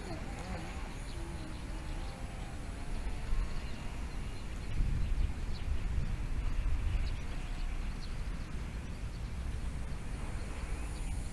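Low wind rumble on the microphone, with the faint, wavering whine of a small electric RC plane motor in the first few seconds.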